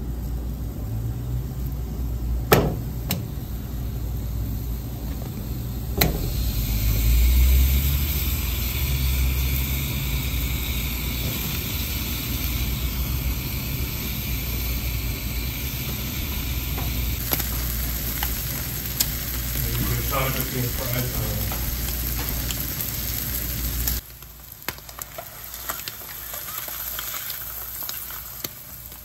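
Slices of Armour Treet luncheon meat sizzling as they fry in a nonstick pan, with a low rumble underneath. Two sharp clicks come in the first six seconds, after which the sizzle grows louder and brighter; it drops suddenly to a quieter level about four-fifths of the way through.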